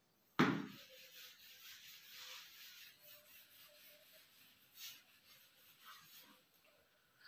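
A sharp knock about half a second in, then faint, uneven rubbing of a duster wiping writing off a whiteboard.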